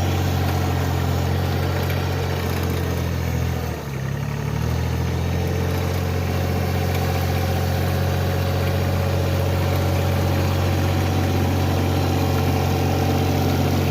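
Tractor engine running steadily, its pitch dipping and recovering briefly about four seconds in.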